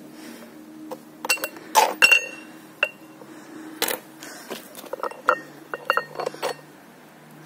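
Cast-iron weight plates clinking and knocking against each other and the threaded steel rod as they are handled, in a string of sharp metallic clinks, each with a short ring. The loudest clinks come about two seconds in, and a quicker run of them follows in the second half.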